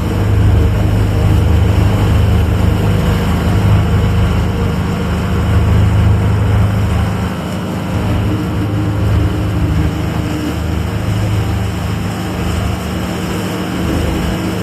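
Steady low drone of a small ferry boat's engine running.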